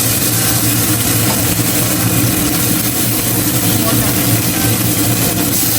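Steady kitchen hum, like an extractor fan running, under a constant hiss of food frying in a pan.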